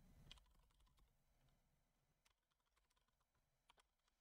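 Near silence with a few faint, sharp computer keyboard clicks.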